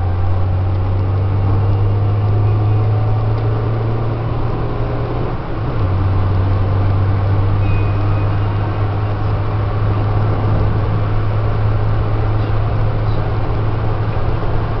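Peugeot 205 Green's 1.4-litre, 70 hp four-cylinder petrol engine heard from inside the cabin while driving: a steady low drone over tyre and road noise, dipping briefly about five and a half seconds in.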